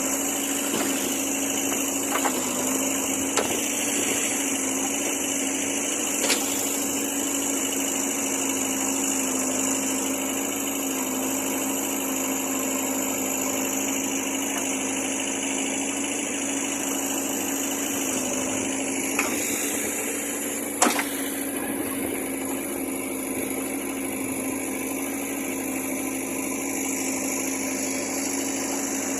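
Diesel engine of a JCB backhoe loader running steadily, its pitch wavering slightly, with a few sharp clicks, the loudest about 21 seconds in.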